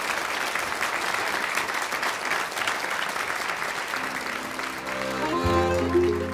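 Audience applauding, dying away about four seconds in as a Styrian button accordion (steirische Harmonika) starts playing held notes; low bass notes join about a second later.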